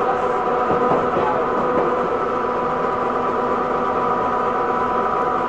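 Sydney wooden-bodied Bradfield electric train motor car running: a steady whine of even pitch over the noise of the wheels on the rails.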